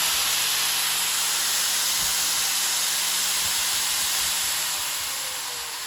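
Electric grinder, powered through an inverter, running at full speed with a steady hiss and hum. About five seconds in it gets slightly quieter and a faint tone starts falling, as the grinder begins to slow.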